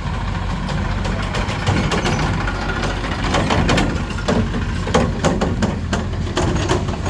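Heavy diesel engine running steadily with a low hum, with repeated sharp knocks and clatter over it from about a second and a half in.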